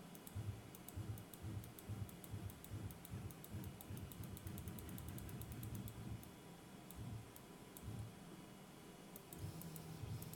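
Velleman K8200 3D printer's stepper motors jogging an axis in a series of short moves, each a brief low hum, with a longer steady hum near the end. Rapid sharp clicks run over them, several a second, thickest in the first half.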